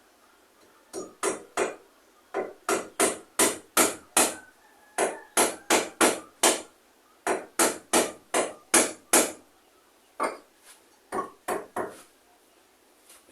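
Hammer blows, likely driving nails into wood, in runs of three to six strikes about three a second, with short pauses between runs.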